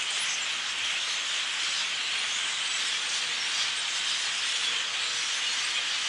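A large flock of birds chattering together from bare trees, so many calls at once that they blend into a steady, dense hiss.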